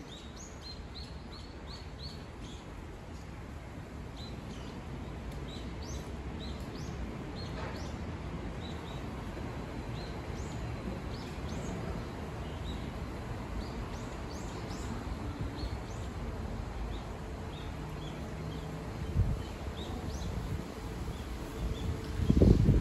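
Small birds chirping over and over in short, high chirps above a steady low background noise, with one dull knock about nineteen seconds in.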